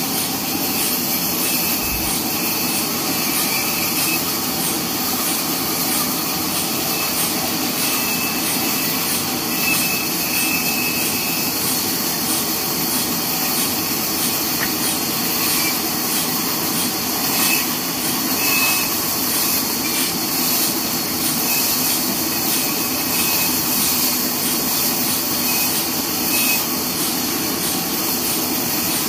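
Horizontal band sawmill running steadily as its blade rips lengthwise through a long neem log, a continuous machine noise of motor and blade in the wood.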